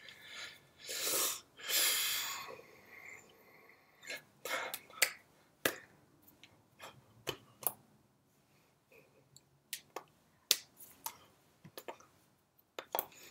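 Hands tapping, clapping and brushing against each other and against a shirt while signing in sign language: scattered sharp taps and soft rustles, with two louder rushes of breath or cloth noise about a second in.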